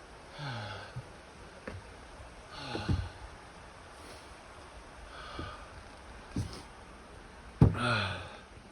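A man breathing heavily, with a voiced sigh on each outbreath that falls in pitch, about every two and a half seconds. There are a few light knocks between the breaths.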